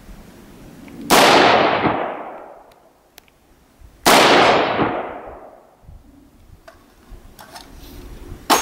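Two shots from a Del-Ton AR-15 rifle, about three seconds apart, fired while sighting in its scope; each crack is followed by a long echo that dies away over about a second. A few faint clicks and a sharper knock come near the end.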